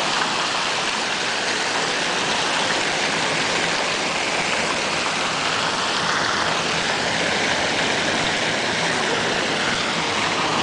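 Water from a bronze public fountain falling in many thin streams from the rim of its basin into the pool below: a steady splashing.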